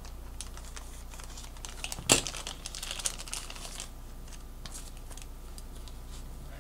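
Plastic packaging crinkling with light clicks of handling as a USB cable is taken out, with one sharper crackle about two seconds in. A steady low hum runs underneath.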